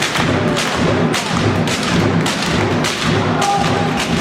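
Handball hall crowd noise with rhythmic thumps about twice a second, and a brief steady tone about three and a half seconds in.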